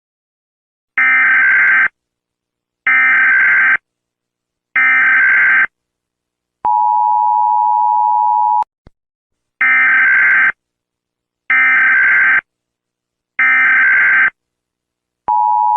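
Emergency Alert System tones: three data bursts of the SAME header, each about a second long, then the steady two-tone attention signal for about two seconds. The three bursts come again, and the attention signal starts once more near the end.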